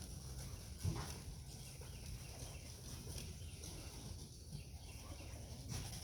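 Pigeons cooing faintly, with one sharp knock about a second in.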